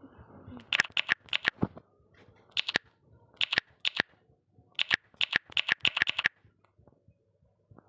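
A series of sharp clicks and taps in quick clusters, a few at a time with short pauses between.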